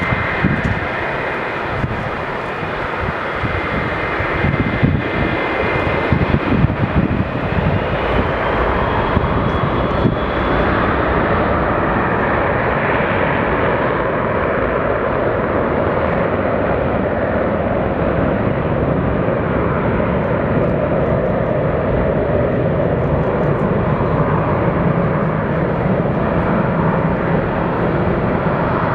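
McDonnell Douglas MD-80's rear-mounted Pratt & Whitney JT8D turbofans running as the jet rolls down the runway. A whine rises about a third of the way in, and then the engines settle into a steady jet roar as the aircraft moves away.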